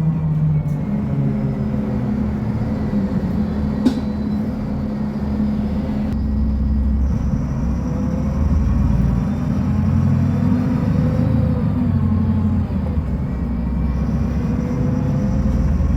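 Mercedes-Benz O500U city bus diesel engine running, its note rising and falling as the bus drives. A single sharp click comes about four seconds in.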